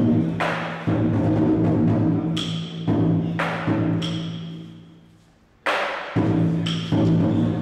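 Chinese lion dance percussion: a drum beating under repeated crashing cymbal strokes. It fades away briefly about five seconds in and strikes up again just before six seconds.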